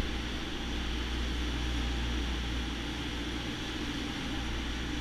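Sport-fishing boat's engines running steadily while trolling, with the wake rushing behind the stern.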